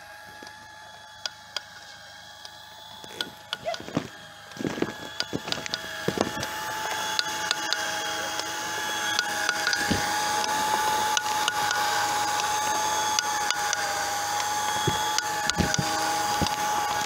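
Leister Comet hot-wedge welder's drive motor running with a steady whine as it welds an HDPE geomembrane seam, getting clearly louder from about five seconds in, with scattered clicks and knocks.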